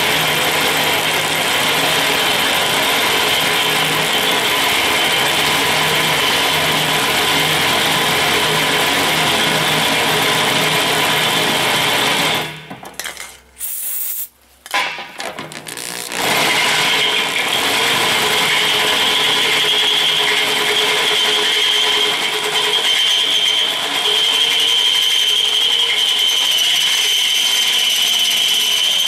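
Drill press boring through a metal plate with a large twist bit, the motor running and the bit cutting and grinding in the metal. It stops about twelve seconds in, a short hiss of aerosol cutting oil is sprayed onto the bit, and the drilling resumes with a steady high squeal from the bit.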